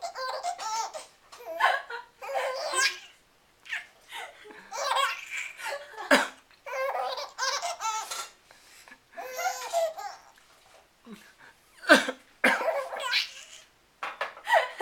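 A small girl laughing in long, repeated fits, set off by her father's coughs; a man's sharp cough breaks in about six seconds in and again near the end.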